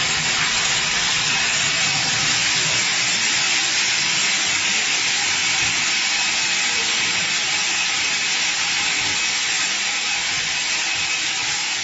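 Wesort 6SXZ-68 optical colour sorter running on soybeans: a steady hiss from its compressed-air reject jets, mixed with beans streaming down the chutes into the buckets.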